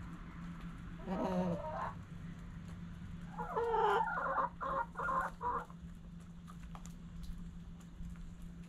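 Hens clucking: a short call about a second in, then a louder call a little later followed by a quick run of four short clucks.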